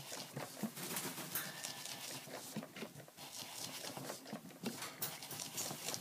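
Foam ink blending tool scrubbed and dabbed in quick, uneven strokes over die-cut cardstock gears: a soft, irregular scratching and tapping of foam on paper as distress ink is worked in.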